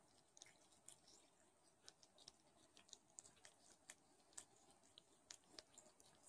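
Faint, irregular wet clicks and smacks of a Don Sphynx mother cat licking her newborn kittens.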